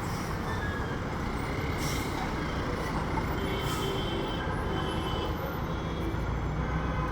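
A passing train's steady rumble of wheels on the rails, with faint high squealing tones coming and going.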